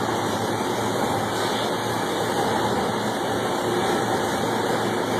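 Electroslag weld in progress: a steady, even bubbling noise from the molten slag bath, which sounds like boiling water, over a low machine hum.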